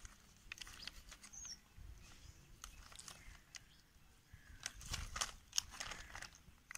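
Knife scraping and cutting a large fish on a plastic sack: faint, irregular scrapes and clicks, busiest about five seconds in.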